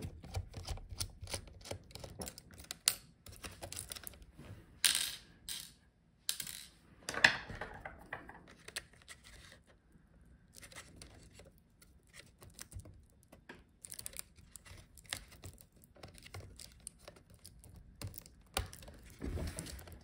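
Scattered small clicks and taps of a precision screwdriver and fingers on a laptop's video cable bracket and connector as its screws are removed and the cable is unplugged. A couple of louder clacks come about five and seven seconds in.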